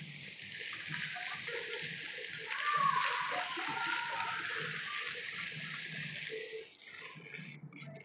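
Steady rushing hiss like running or splashing water, which fades out near the end.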